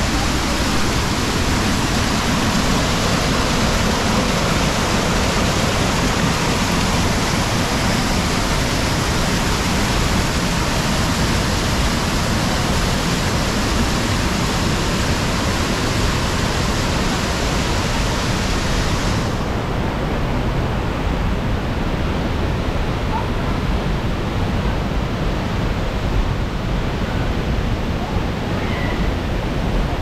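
Steady rush of river water spilling over a concrete weir and falling from a waterfall. About two-thirds of the way through, the sound turns duller as its highest hiss drops away.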